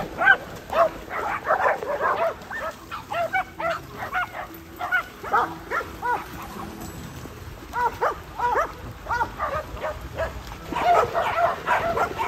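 A pack of dogs barking and yipping, many short barks overlapping, with a brief lull about halfway through.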